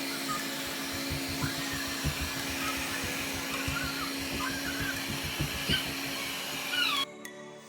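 A small electric motor with a fan, blowing-appliance type, running steadily with a low hum, then cutting off suddenly about seven seconds in.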